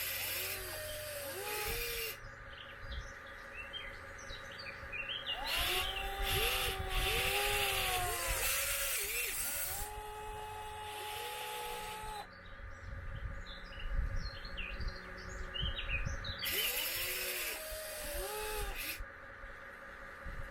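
Electric motors of a 1/14 scale Volvo EC160E RC excavator whining as its functions are worked, the pitch sweeping up and falling back again and again, over a steady higher whine, with a few stretches of rushing noise. Small birds chirp in the background.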